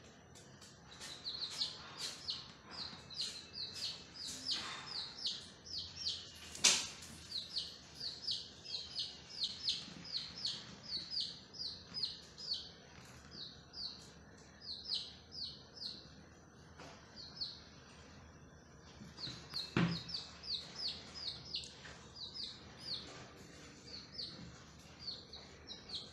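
Baby chicks peeping: a rapid run of short, high, downward-sliding peeps, about three a second, with brief lulls. A sharp click about a third of the way in and a dull thump about three quarters of the way through.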